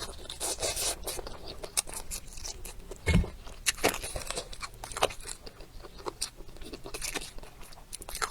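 A person eating close to the microphone: irregular crunching bites and chewing, with a louder dull thump about three seconds in.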